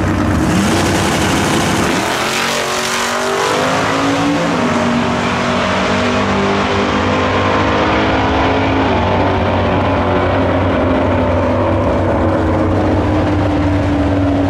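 Drag-racing cars launching from the starting line and accelerating hard down the strip, engine pitch climbing, dropping sharply at a gear change about four seconds in, then running on steadily.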